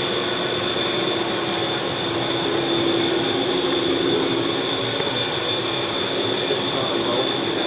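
Kent 10 hp CNC bed mill running, a steady mechanical drone with a high, even whine over a lower hum.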